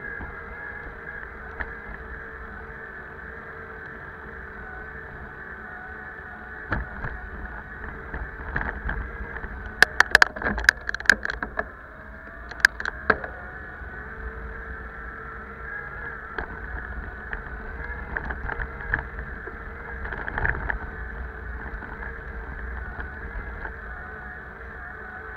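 Bicycle riding along an asphalt street: a steady whirring hum, with a cluster of sharp clicks and knocks about ten to thirteen seconds in.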